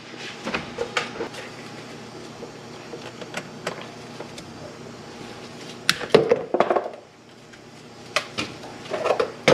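Zip ties being snipped and a loose plastic engine splash shield being pulled free: scattered clicks and plastic rattling, louder clatter about six seconds in and again near the end, over a faint steady hum.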